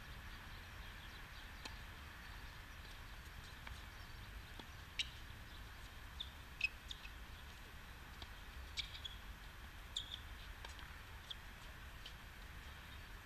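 Tennis ball struck by rackets in a doubles rally: a handful of sharp pops one to two seconds apart, the loudest a little past halfway, over a steady low rumble.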